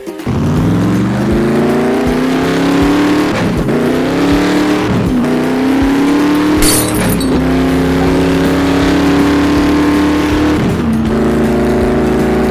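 A race-car engine sound, loud and steady. It climbs in pitch at the start, then holds, with a few brief drops in pitch like gear changes.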